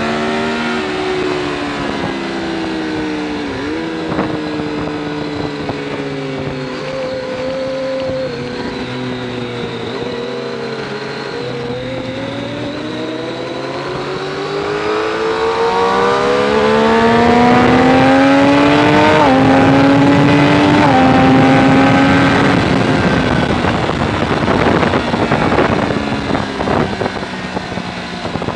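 Triumph sportbike engine heard from on board at track speed: revs fall as the bike slows, with stepped downshifts, then stay low through a corner. It then climbs hard through the gears, two upshifts audible as sudden drops in pitch, and wind rush on the microphone takes over as speed builds.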